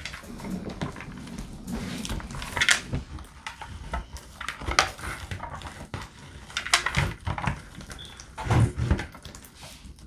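Hands kneading clear slime mixed with pumpkin seeds in a plastic bowl: irregular squishing with knocks against the bowl, a few louder squelches about every two seconds.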